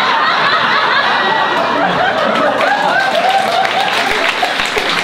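Theatre audience laughing loudly together, with scattered clapping beginning to join in near the end.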